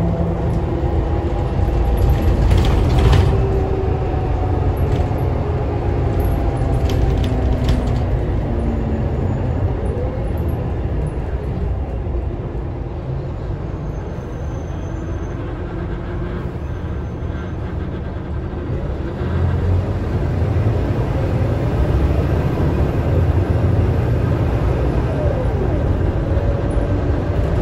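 Scania K320UA city bus heard from inside the cabin while driving: the engine and driveline run steadily with a few rattles from the body in the first eight seconds or so. It eases off and goes quieter in the middle, then pulls harder again about two-thirds of the way through, with whining tones that rise and fall.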